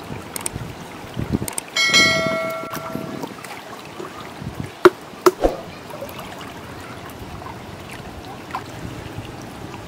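A short, bright notification-bell chime sound effect rings about two seconds in, over a steady rush of flowing river water. A little later come three sharp clicks in quick succession.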